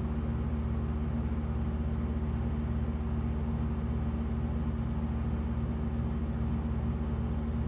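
Steady low mechanical hum with a fast, even pulsing drone underneath, unchanging throughout.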